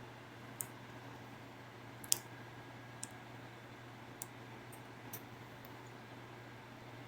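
Half a dozen short, sharp clicks at uneven intervals over a steady low hum, the loudest about two seconds in.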